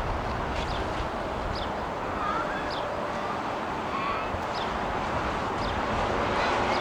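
A small bird giving short, high, falling chirps about once a second over a steady rushing background of airport and wind noise.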